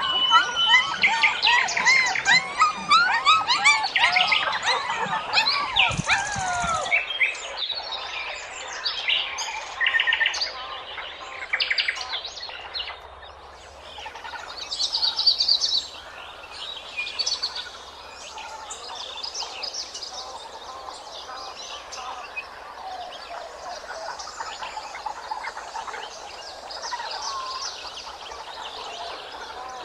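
Birds chirping and calling. Many overlapping, busy chirps in the first several seconds; then, after a sudden change, a quieter and steadier background of scattered bird calls.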